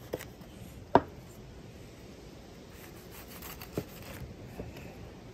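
A kitchen knife slicing through soft cheeseburger buns with a faint scratchy rustle, its blade knocking on a wooden cutting board a few times, the sharpest knock about a second in.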